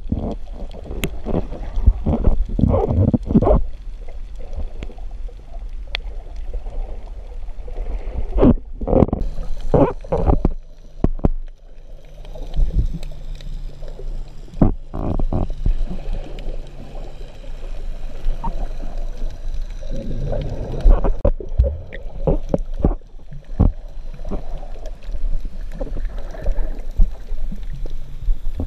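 Underwater sound picked up by a camera held below the surface while snorkeling: a muffled low rumble broken by irregular bubbling and sloshing bursts of water moving past the housing.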